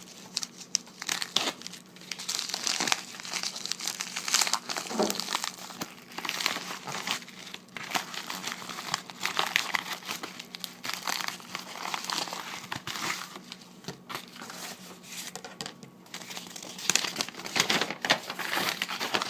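Plastic and paper packaging crinkling and rustling in irregular handfuls as trading cards are unwrapped and handled, busiest near the end.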